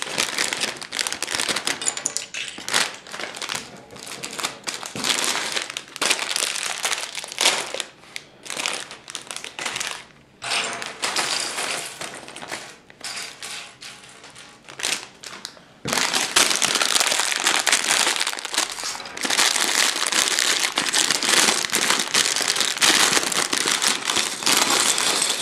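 Thin plastic bags of Lego pieces being torn open and crinkled, the crinkling thicker and louder from about two-thirds of the way through.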